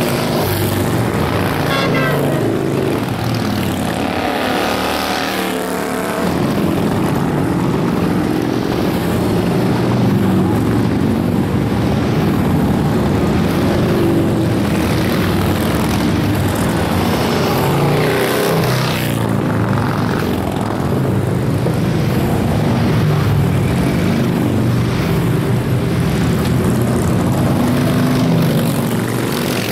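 A steady stream of large touring motorcycles riding past, their engines making one unbroken drone. Single bikes pass close with a rise and fall in pitch, most clearly about two, five and eighteen seconds in.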